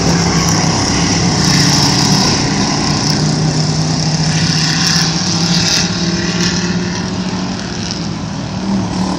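Engines of several dirt-track race cars running at speed around the oval, a loud, steady engine drone that eases slightly near the end.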